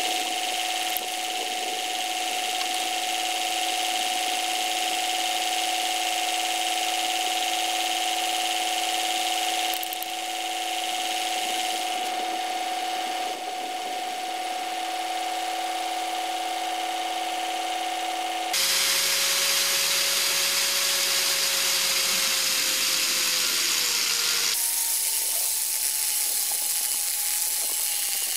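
Electric angle grinder running with a steady whine that changes abruptly several times. In the second half its pitch sags slowly twice as the disc grinds into the steel rail.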